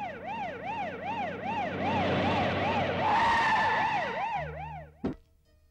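Police car siren wailing rapidly up and down, about two sweeps a second, over the engine of a white Hindustan Ambassador with a red beacon as it pulls up. The siren cuts off just before five seconds in, followed by a single sharp knock.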